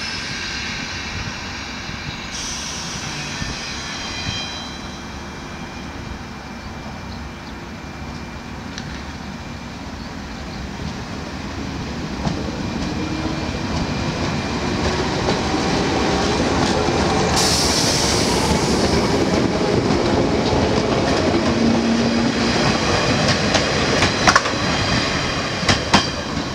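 JR West 117 series electric train pulling away from a station: its motors and wheels build in level as it gathers speed. A short burst of hiss comes partway through, and sharp wheel clicks over rail joints near the end.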